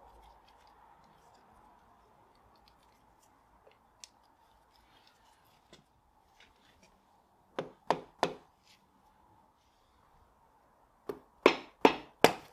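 Sharp metallic clicks of a socket wrench working the oil filter housing bolts on a cast iron engine block: three close together about halfway through, then a run of about five near the end.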